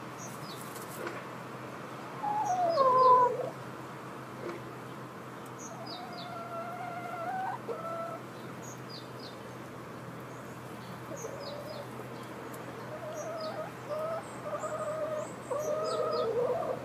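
Chickens in a coop clucking and calling. The loudest call comes about two seconds in and slides down in pitch. A longer, steadier call follows a few seconds later, and a run of drawn-out calls builds toward the end.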